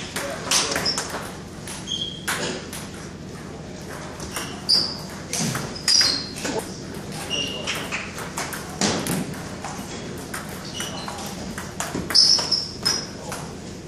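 Table tennis rally: the celluloid or plastic ball clicking off paddles and the table in quick succession. Short high shoe squeaks come from the wooden floor now and then.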